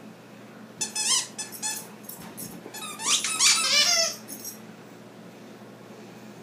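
Pink plush dog toy's squeaker squeaking as a dog bites and shakes it, in two flurries of high, wavering squeaks, the second longer and louder.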